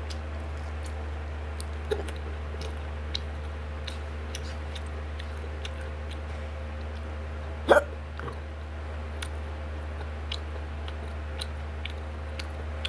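Close-up eating sounds: soft chewing and wet mouth clicks at an uneven pace over a steady low hum, with one louder, sharp throat sound about eight seconds in.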